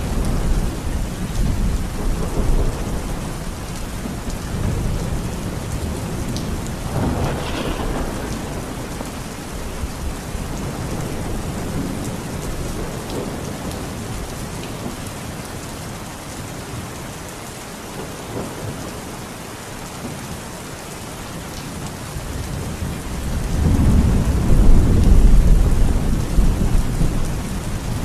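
Steady rain falling, with low rolling thunder rumbling in and out; the loudest rumble swells up about three-quarters of the way through and dies away near the end.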